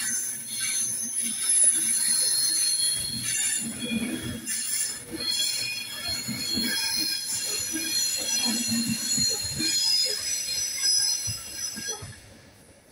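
Class 390 Pendolino electric train running past, its wheels squealing in several high, shifting tones over a low, uneven rumble of wheels on rail. The sound drops away sharply about twelve seconds in as the train draws off.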